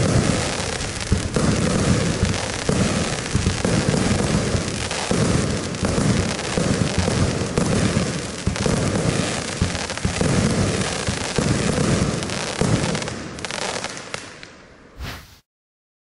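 Compound firework cake firing its 20 mm and 25 mm shots in quick succession: a dense, loud run of launch thumps and aerial bursts that thins out and dies away near the end as the cake finishes.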